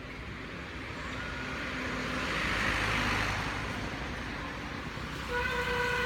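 A road vehicle passing by, its noise swelling to a peak mid-way and then fading. Near the end a steady horn starts sounding.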